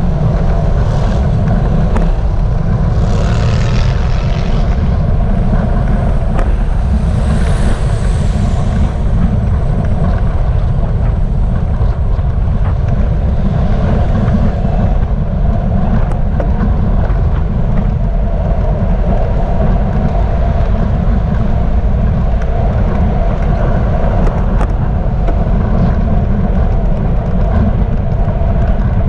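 Wind buffeting the microphone of a bike-mounted GoPro while riding: a loud, steady, deep rumble. Road traffic passes alongside, with tyre hiss swelling a few seconds in, again about eight seconds in, and around fourteen seconds.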